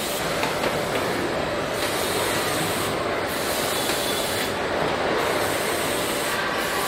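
Steady machinery noise of a robotic car-body assembly line: industrial robots and fixtures running under a constant hiss, with scattered faint clicks.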